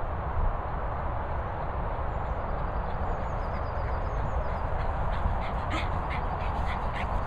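Outdoor ambience: wind rumbling on the microphone over a steady background noise, with faint small bird chirps. Near the end comes a quick series of short rasping sounds, about three a second.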